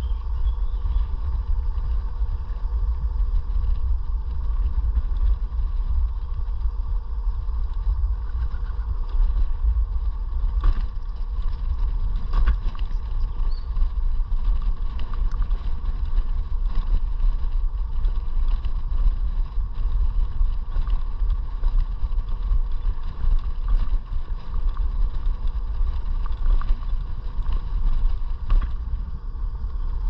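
iScooter E9D electric scooter riding at a steady speed: heavy wind rumble on the microphone, with a steady whine held throughout. A few sharp knocks come through about a third of the way in and again near the end.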